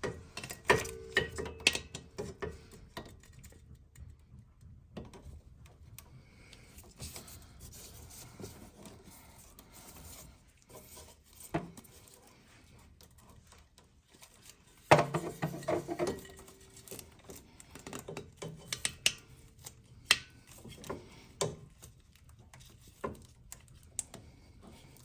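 Hands working a rubber coolant hose onto the neck of a plastic coolant expansion tank: scattered clicks, knocks and scuffs of plastic and rubber. There is a louder flurry of knocks about fifteen seconds in.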